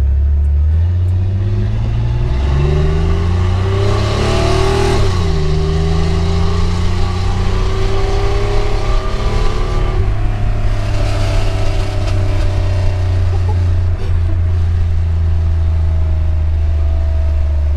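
A vehicle's engine heard from inside the cabin while accelerating, its pitch rising, then dropping as it shifts up about five seconds in and again about ten seconds in, over a steady low drone.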